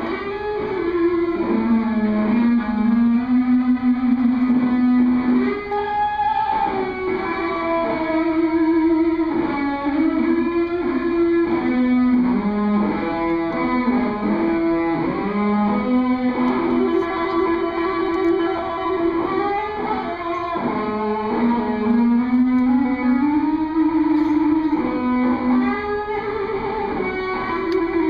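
Solo electric guitar played through a small amplifier and effects pedals, carrying a slow melody of long held notes that bend and slide in pitch.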